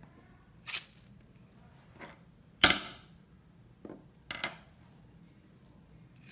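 Short, sharp percussive sounds made one at a time, a couple of seconds apart, for children to count.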